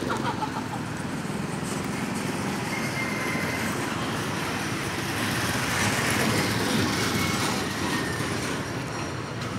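Steady road traffic noise, swelling louder for a couple of seconds past the middle as a vehicle goes by.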